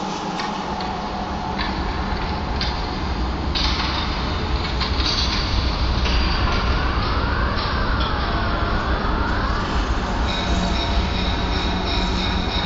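Steady train-like rumble and clatter, with a siren-like tone that sweeps up and down several times from about six to ten seconds in.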